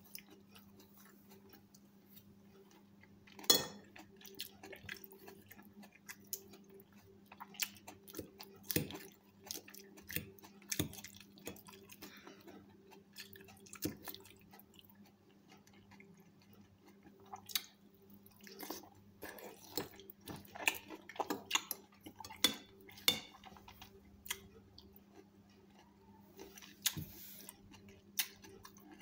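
Metal fork clinking and scraping against a porcelain plate, with irregular chewing of salad, as forkfuls are picked up and eaten. Scattered short clicks, the loudest about three and a half seconds in, over a steady low hum.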